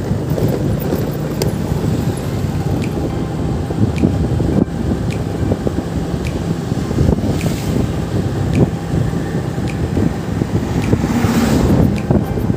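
Motorcycle riding along a road: steady engine hum and road noise, with wind buffeting the microphone. A louder rush of noise swells and fades near the end, with a faint regular ticking underneath.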